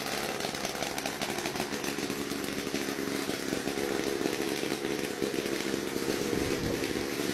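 Small engine and rear propeller of a homebuilt single-seat gyrocopter running steadily as the craft moves off along the ground.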